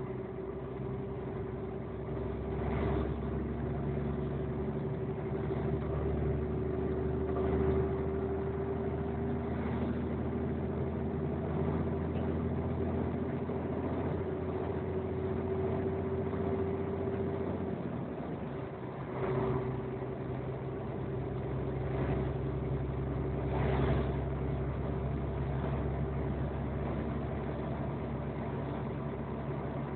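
A road vehicle's engine running steadily, heard from inside the cab, with tyre hiss on a wet road. The engine sound breaks off briefly about two-thirds of the way through, then resumes. Short swells of hiss come and go several times as vehicles pass.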